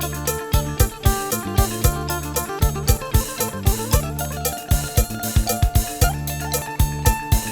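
Music with a steady beat of about two strokes a second over a held deep bass, with a melody on top.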